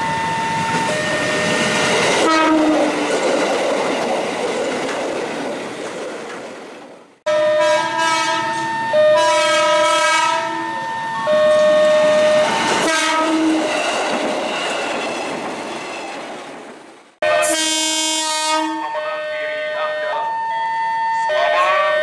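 JR 205 series electric commuter trains sounding their horns in repeated blasts of steady, chord-like tones over the rumble and clatter of the passing train. The sound breaks off abruptly twice as one passing train gives way to the next.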